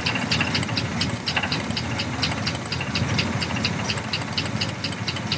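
1967 Chevrolet Impala's 327 small-block V8 idling with a rapid, even knocking/tapping, about four or five sharp taps a second over the low engine rumble. The knock has newly appeared, and the engine vibrates, loses compression and dies when driven.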